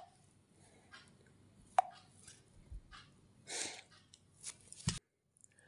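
A finger tapping and handling a smartphone lying on a hard tabletop: a few light clicks and knocks, the two sharpest at the start and about two seconds in with a short ring, and a brief rustle in between.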